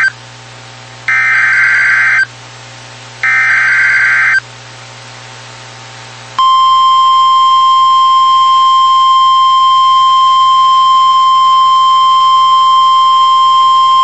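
NOAA Weather Radio Emergency Alert System broadcast: the end of one SAME digital header burst, then two more harsh, screeching data bursts about a second long with a second of pause between each, followed about six seconds in by the steady 1050 Hz warning alarm tone. Together they signal the start of a severe thunderstorm warning.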